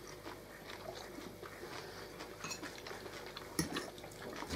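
Faint, scattered clicks of metal cutlery against plates and bowls during a meal, with a sharper clink about three and a half seconds in.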